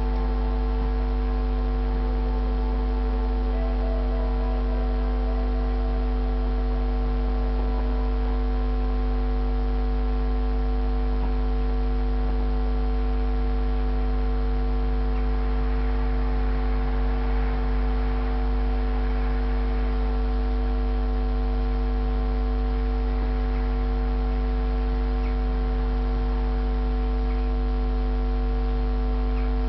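A steady, very low hum with a stack of fixed overtones above it. A few faint held notes sound over it in the first several seconds, and a soft rushing swell comes about halfway through.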